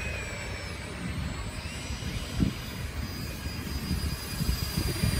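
Electric ducted fans of a radio-controlled flying car model running in flight: a thin, high whine that drifts slightly in pitch as the throttle changes. Wind gusting on the microphone adds an uneven low rumble.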